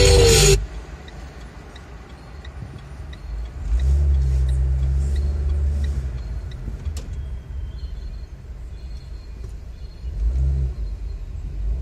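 Music cuts off within the first second, leaving the low rumble of a car's engine and road noise in slow city traffic. The engine note swells about four seconds in and again near the end, with faint regular ticking through the first half.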